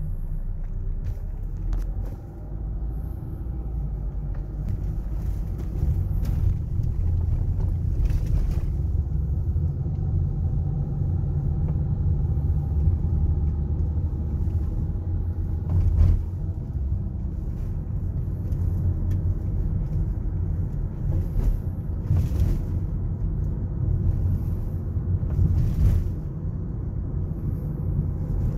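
Car interior noise while driving: a steady low rumble of engine and tyres on the road, with a faint steady whine above it and a few brief thumps, the loudest about halfway through.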